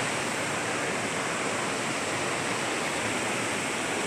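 Steady rushing of flowing water, like a stream running over rocks.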